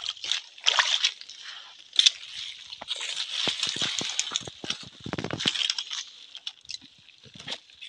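Mesh net fish trap being shaken and handled over wet leaf litter: rustling with scattered clicks and rattles, and a quick run of rattling clicks in the middle.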